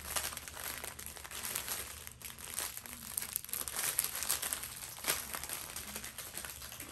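Small plastic baggies of diamond-painting drills crinkling and rustling as they are handled, a steady run of crackles with sharper crinkles scattered through.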